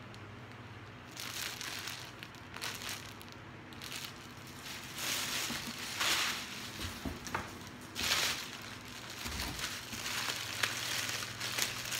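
Clear plastic packaging crinkling and rustling in irregular bursts as it is handled.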